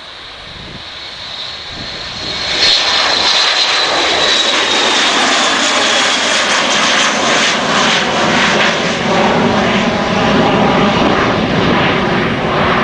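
Three-engined Dassault Falcon business jet taking off and climbing away at take-off power. The engine noise builds over the first two seconds and turns loud about two and a half seconds in. A high turbine whine then slowly falls in pitch as the jet passes, over a steady loud rumble.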